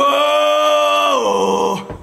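A man's drawn-out pirate cry, one long call starting abruptly, held on one pitch, then sliding down in pitch and breaking off near the end.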